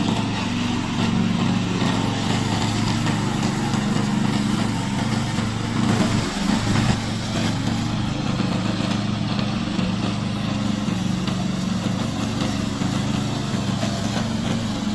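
Gasoline engine of a remote-control crawler brush mower running steadily at a constant speed, briefly a little louder about six seconds in.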